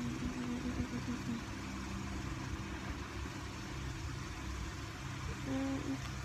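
Steady low background hum, with two faint short pitched tones: one in the first second or so and one about five and a half seconds in.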